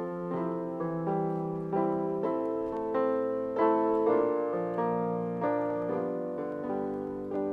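Piano-voiced keyboard playing a slow melody over chords, each note struck and then fading.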